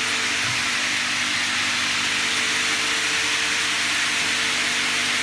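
Aluminium glazing-profile milling machine running: a steady hiss with two faint steady hums beneath it and no separate cutting strikes.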